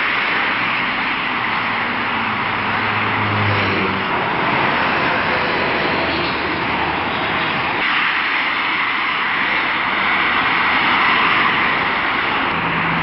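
Steady rushing noise of distant engines outdoors, with a low hum in the first few seconds.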